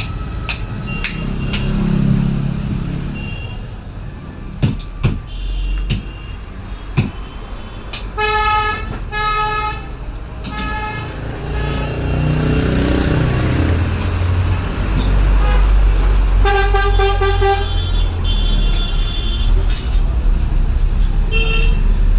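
Road traffic running by with a steady rumble, and vehicle horns honking several times: a few short toots, then a longer blast and more toots near the end.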